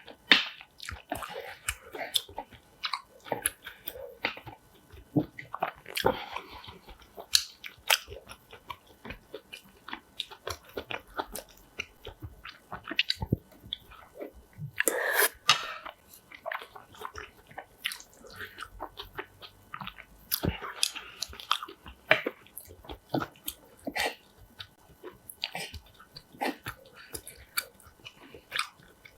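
Close-miked eating: one person chewing and biting crisp food, with irregular crunches and mouth clicks, a few bites louder than the rest. The crunch fits kimchi eaten with rice.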